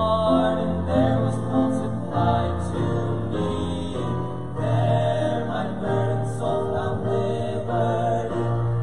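Male vocal quartet singing a gospel song together in harmony, through microphones, with several voices holding notes at once.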